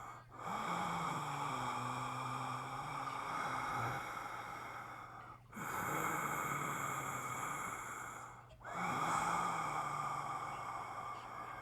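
A man breathing slowly and deeply, each breath lasting several seconds, with brief pauses between them. There is a faint low hum of voice in some of the breaths.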